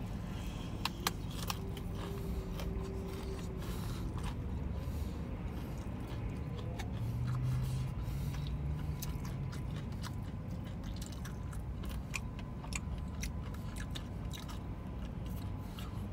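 A person biting into and chewing crispy-skinned fried chicken, with scattered small crackles and clicks.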